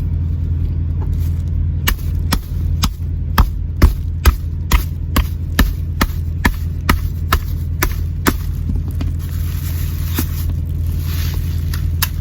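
A hammer striking a machete blade to drive it into a coconut shell: about fifteen sharp knocks, roughly two a second, from about two seconds in to about eight seconds in. A steady low hum of the truck runs underneath.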